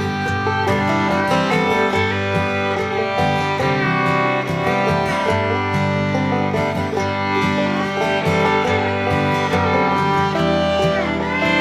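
Instrumental background music with fiddle and acoustic guitar, in an upbeat bluegrass style.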